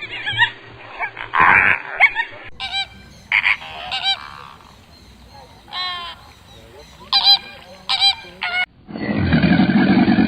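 Geese honking: a series of short, separate honks. Near the end a loud, low roar of a large animal begins.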